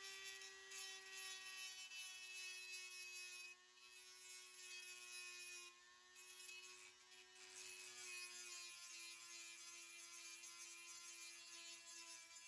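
Faint, steady whine of a handheld rotary tool fitted with a sanding drum, sanding the edge of a plastic gauge bezel. Its pitch drops slightly about two thirds of the way through, and it dips briefly a couple of times as the tool is eased on and off the plastic.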